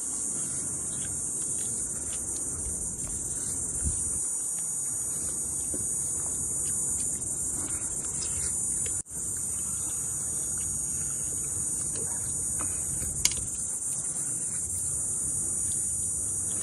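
Steady, continuous high-pitched buzzing of a chorus of insects, crickets or cicadas, with a few faint clicks and a momentary break about halfway.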